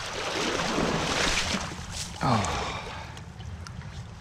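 Water splashing for about two seconds as a brown trout thrashes in a landing net at the stream's surface, then settling to quieter water movement.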